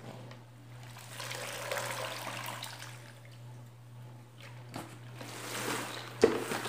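Spin mop swishing in the bucket's rinse water, with water trickling off it as it is lifted into the stainless steel spinner basket and spun to wring it out. A sharp knock comes near the end.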